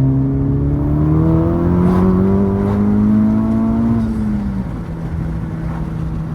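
Honda Civic Type R (FK8) turbocharged four-cylinder with a catless front pipe and downpipe, under a hard pull: the engine note climbs steadily for about four seconds. It then drops quickly as the revs come down and settles into a steady, lower drone.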